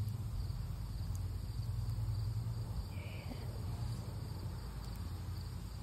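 Field crickets chirping steadily in a night chorus, over a low steady rumble.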